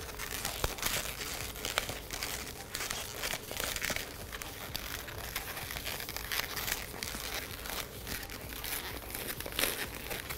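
Latex modelling balloons being twisted by hand: the rubber rubbing and crackling, with many short sharp crackles.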